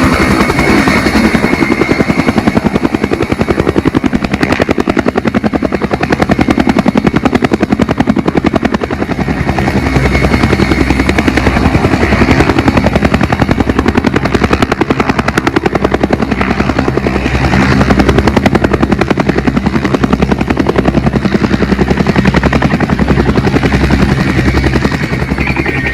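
Helicopter flying, its rotor beating rapidly and steadily throughout.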